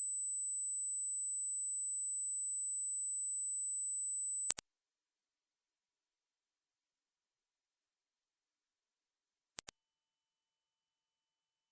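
Pure sine-wave hearing-test tones stepping up in pitch: a steady high tone, then after a brief break a higher one about four and a half seconds in, then a still higher, very high one about ten seconds in.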